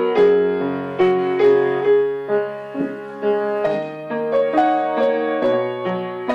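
Background piano music: a slow melody over low bass notes, each note struck and then fading.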